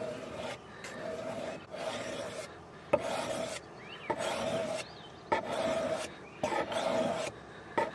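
A steel blade drawn over a flat sharpening stone in repeated scraping strokes, about eight of them, roughly one a second.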